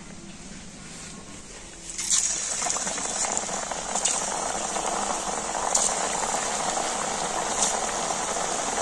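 Hot vegetable oil sizzling and bubbling hard as rolled semolina pitha are dropped in to deep-fry. The sizzle starts about two seconds in, with a sharp crackle roughly every two seconds as another dumpling goes in. The oil is heated very hot so the semolina does not break apart.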